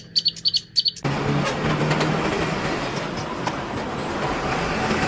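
About six short high chirps in the first second, then the steady noise of a truck running.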